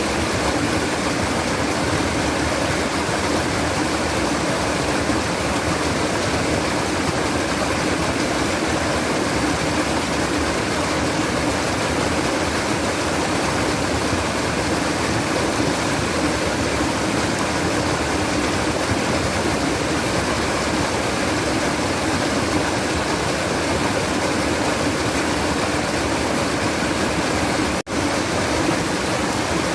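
Steady rush of babbling, flowing water, even and unbroken, cutting out for an instant near the end.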